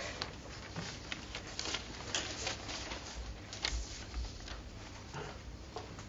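Quiet small-room background with scattered soft clicks and rustles, and a few low bumps about halfway through.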